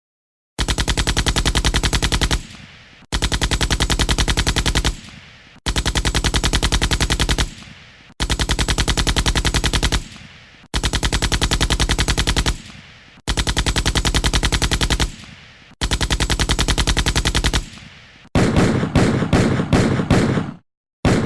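Machine-gun sound effect: seven identical bursts of rapid automatic fire, each about two seconds long with a short fading tail, repeated at even intervals. Near the end a different gunfire effect follows, a slower string of separate shots a few a second, briefly stopping and starting again.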